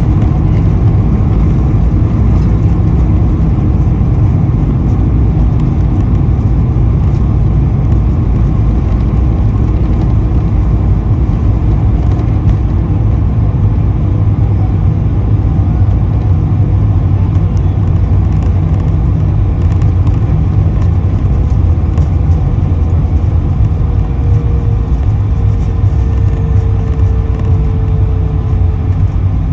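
Airbus A220-100 jet airliner landing, its Pratt & Whitney geared turbofan engines and airflow making a loud, steady rumble, with a faint tone sliding slowly lower near the end.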